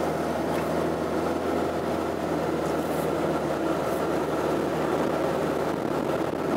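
Car driving, heard from inside the cabin: a steady engine hum mixed with tyre and road noise.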